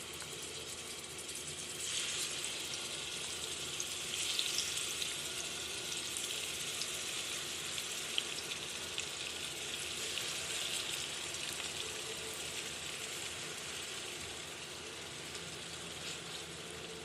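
Marinated chicken pieces frying in hot oil in a pan: a steady sizzle that gets louder about two seconds in.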